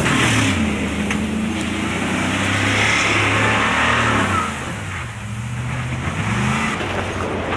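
Pickup truck's engine revving as it drives hard off-road over dirt and grass, its pitch falling and rising several times, with tyres churning up dirt. It gets quieter about halfway through, then revs up again near the end.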